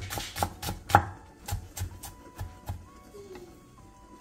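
Chef's knife slicing Korean green onion (daepa) finely on an end-grain wooden cutting board: a quick run of sharp knocks, about four a second, that stop about three seconds in.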